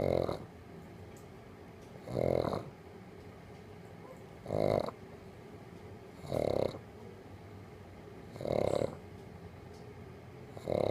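Snoring in a steady rhythm, one snore about every two seconds.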